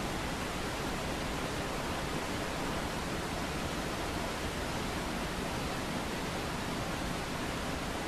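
Mountain waterfall: a steady, even rush of falling water that does not change in level.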